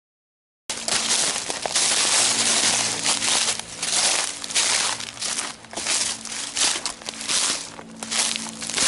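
Footsteps crunching on dry ground litter at a steady walking pace, about one or two steps a second. The sound starts suddenly shortly after the beginning.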